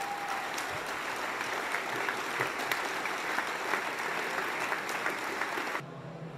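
A hall audience applauding, a dense run of many hands clapping that cuts off abruptly near the end, leaving a low steady hum.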